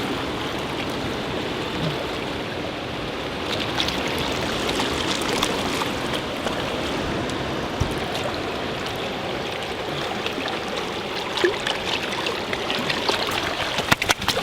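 Steady rush of flowing floodwater, with a few sharp clicks about a second before the end.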